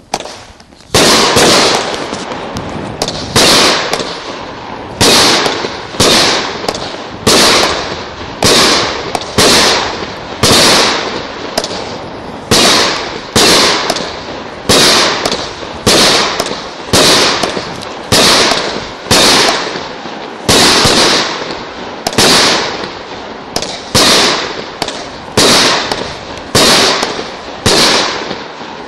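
A 25-shot consumer firework cake ('Flower Power') firing its shots in steady succession, about one a second. Each shot is a sharp, loud bang that fades over about half a second.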